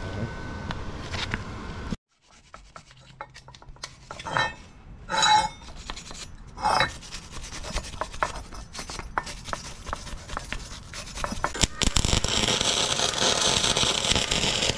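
Metal scraping and rubbing on a welded steel turbo flange and pipe assembly, in irregular strokes with clicks and clinks. About twelve seconds in, a steady, dense crackling hiss of welding on the pipe joint starts.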